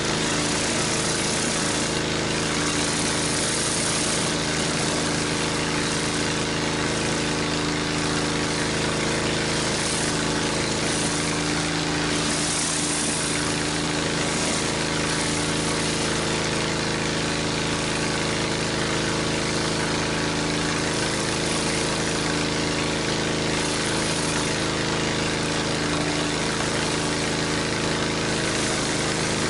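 Gas-engine pressure washer running steadily at full pressure while a 14-inch Whirl-a-Way surface cleaner sprays onto concrete: an even engine hum under a constant water hiss.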